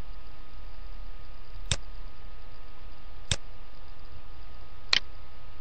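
Three sharp computer-mouse clicks, evenly spaced about a second and a half apart, over a steady microphone hiss and low hum.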